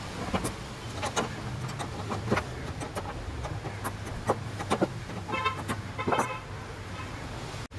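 Scattered light clicks and taps, as of tools working on stove parts, over a steady low hum, with a short honk-like tone about five seconds in.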